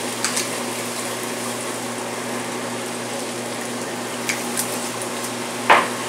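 Soy milk simmering and bubbling in a frying pan over a gas flame, over a steady low hum. A few brief sharp sounds from stirring the pan, the loudest near the end.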